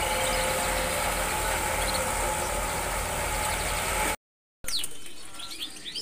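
Busy market din with a steady low engine rumble and faint bird chirps. After a brief dropout about four seconds in, caged songbirds chirp and twitter close by, many quick rising and falling notes.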